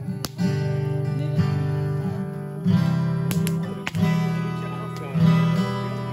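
Steel-string acoustic guitar being strummed, several chords ringing out and changing every second or so.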